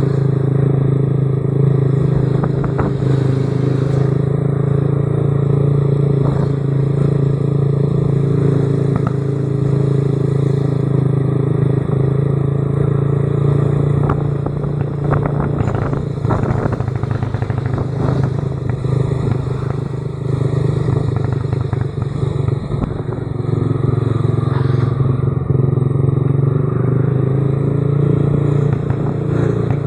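Engine running steadily with a constant low hum and irregular clattering, busiest about halfway through. It is taken to be the strange 'blukbuk blekbek' noise the owner is concerned about.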